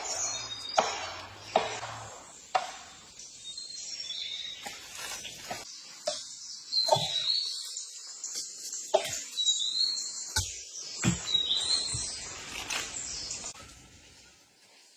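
Irregular knocks and taps, with a few short bird chirps in between.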